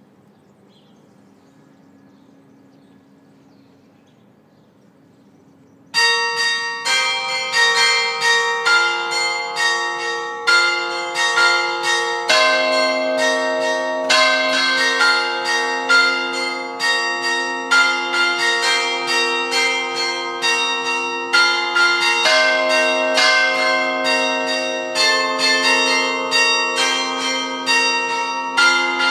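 Church bells ringing for Sunday Mass: after a few quiet seconds they start suddenly about six seconds in and go on in quick, overlapping strikes at several pitches, each stroke left ringing.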